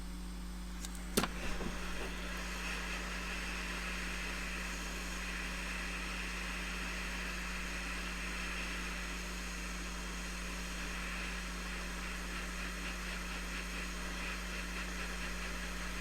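Steady hiss of a hot air rework station blowing while it reflows solder under a phone's charging connector, with one sharp click about a second in.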